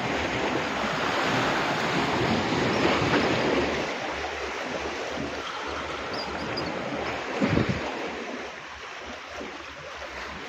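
Sea surf washing on the shore, swelling over the first few seconds and then easing off, with some wind on the microphone. A brief low thump comes about seven and a half seconds in.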